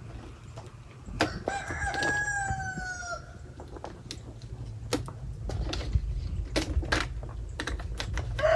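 A rooster crowing once, a held call of about two seconds that drops slightly in pitch at the end. Scattered sharp knocks and clicks sound around it.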